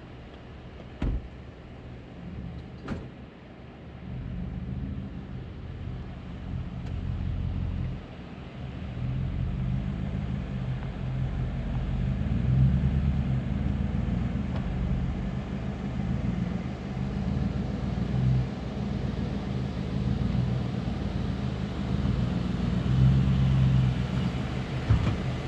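Stock Ford F-150 pickup's engine running at low revs as the truck crawls over slickrock, its drone growing steadily louder as it approaches. Two sharp knocks sound about one and three seconds in.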